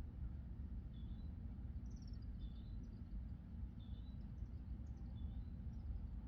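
Small birds chirping outdoors: a short chirp repeated about every second and a half, with a few higher chirps mixed in, over a steady low rumble.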